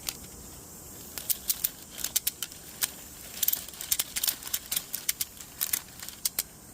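Ratchet strap being cranked tight: sharp clicks of the ratchet mechanism in short, irregular runs.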